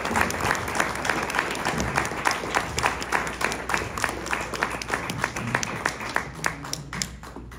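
Audience applauding, a dense patter of hand claps that thins out and dies away near the end.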